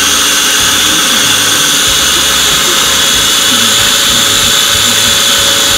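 Electric food processor running steadily, its motor giving a high, even whine as the blade chops a bowlful of greens.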